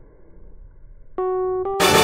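Background piano music: after a faint first second, a few single piano notes begin, and near the end a louder, fuller passage with bright high sparkle comes in.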